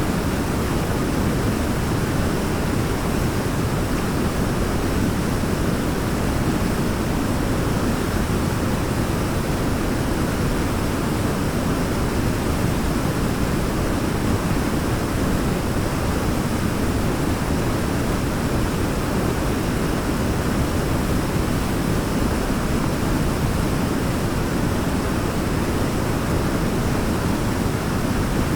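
Waterfall: a steady, even rush of falling water, deep-toned, with no breaks or changes.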